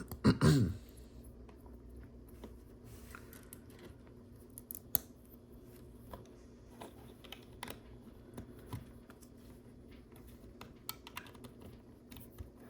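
Small plastic LEGO pieces clicking and tapping as bricks are handled and pressed together, in scattered light clicks. A brief hum of a voice comes right at the start.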